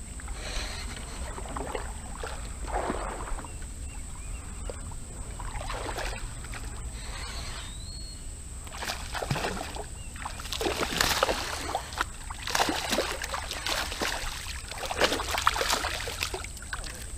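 River water sloshing and splashing around a wader's legs in irregular bursts that grow louder in the second half. Near the end a hooked smallmouth bass splashes at the surface.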